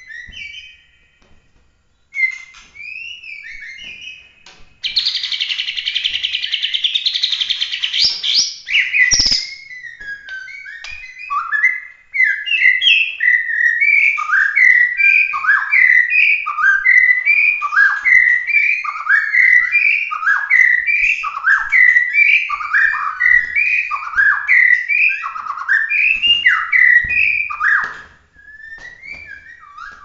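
White-rumped shama (murai batu, Bahorok strain) singing loudly: varied whistled phrases, a fast dense rattle about five seconds in, then a long run of evenly repeated downward-swooping whistled notes that ends near the end.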